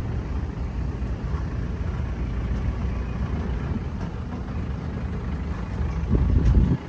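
Strong wind buffeting the microphone: a steady low rumble, with a louder gust near the end that cuts off sharply.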